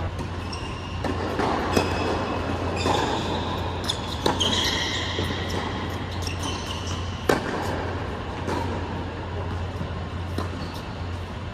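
Tennis balls struck by rackets in a rally on an indoor hard court: sharp hits every second or two, with short high squeaks of shoes on the court in the first half. A steady low hum runs underneath.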